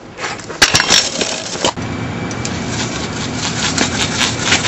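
Razor kick scooter rolling over pavement: a steady rough rolling and rattling noise with many sharp clicks and knocks, starting just after the moment begins.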